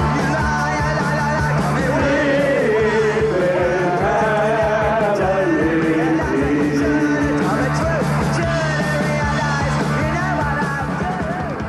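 A punk rock song plays, with a voice singing and yelling over a band, fading near the end.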